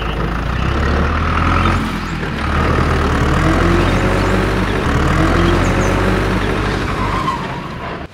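A large vehicle's engine running steadily, a deep rumble with a faint rising whine in the middle.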